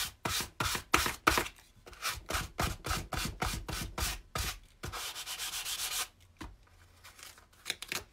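Hand sanding block rubbed back and forth along the edge of a book board, in quick rasping strokes of about four a second. The strokes give way to a steadier rub about five seconds in, then turn faint and sparse near the end. The sanding trims the board's head and tail edges to exact height and leaves a slight bevel.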